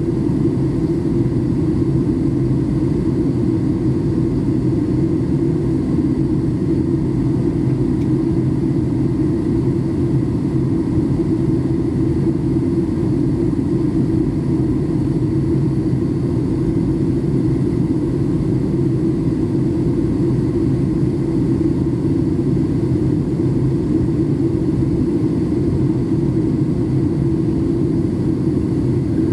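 Steady cabin noise of a Boeing 737 MAX 8, heard from a passenger seat: a constant low rumble of its CFM LEAP-1B engines and the airflow, with faint steady whines above it.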